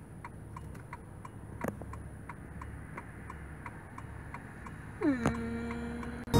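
Car turn-signal indicator clicking steadily, a little under three ticks a second, over the low hum of the idling engine. Near the end a held tone starts, dipping slightly in pitch and then holding steady.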